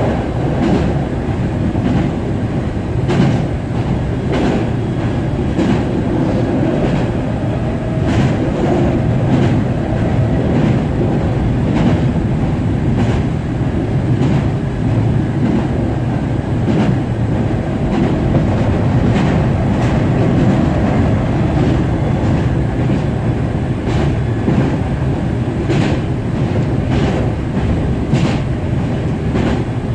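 Hankyu 7000 series electric train running, heard from inside the car: a steady rumble of wheels on rail, broken by irregular clicks of the wheels over rail joints.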